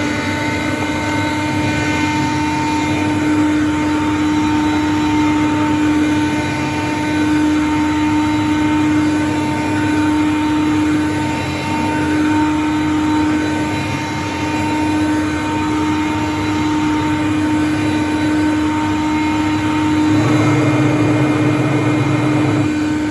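Hoover Conquest upright vacuum cleaner running steadily at full speed, its motor holding a high steady whine. A lower rumble joins about twenty seconds in.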